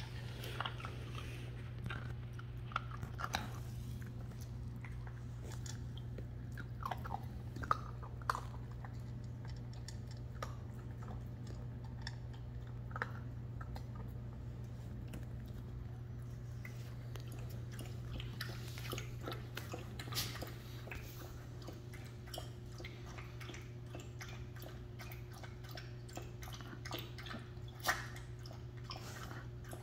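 A Shiba Inu puppy chewing and crunching dry kibble from a bowl, with irregular crunches, over a steady low hum.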